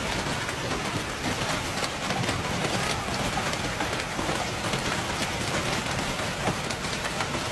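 Heavy hail pelting a car: a dense, steady clatter of many small impacts.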